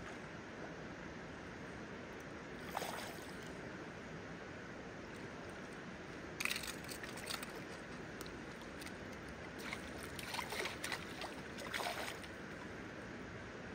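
Shallow river flowing steadily, with a hooked trout splashing at the surface several times over the second half as it is brought to the landing net.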